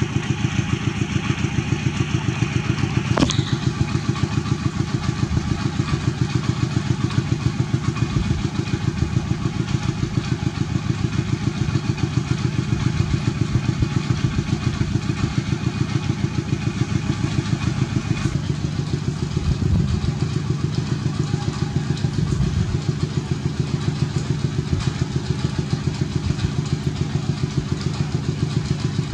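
A small engine running steadily nearby, a regular low pulse repeating quickly throughout. A single sharp click sounds about three seconds in.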